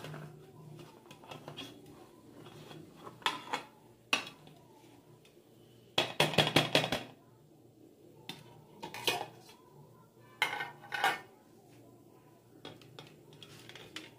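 Stainless steel plate and steel dhokla tin knocking and clinking against each other as the tin is upturned onto the plate to turn out the steamed dhokla. Scattered knocks, with a quick run of rattling clinks about six seconds in that is the loudest, then a few more knocks.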